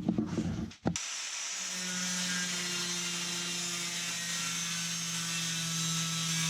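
Handheld electric power tool cutting the aluminum of a truck toolbox, running at a steady speed with a high hiss over an even hum. It comes in about a second in and holds steady.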